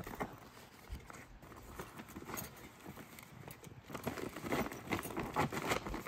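Rustling and crinkling of a folded survival blanket being stuffed into its nylon stuff sack: faint scattered crackles, busier from about four seconds in.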